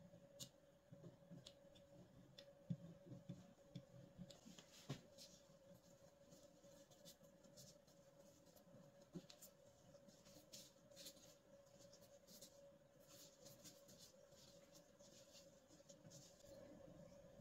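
Near silence: faint light taps and scraping as dough is cut with a pizza wheel and handled on a silicone baking mat, over a faint steady hum. The taps come mostly in the first five seconds.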